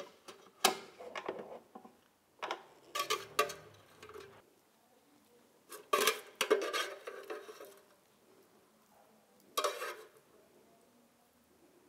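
Utensil clinking and scraping against an air fryer's nonstick basket as cooked fajita filling is served out, in four short bursts of clatter with quiet gaps between.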